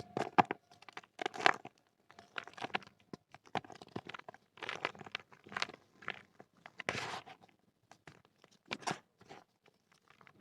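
Dry red clay crumbling: many short, irregular crunches and crackles coming in clusters as the lumps break apart.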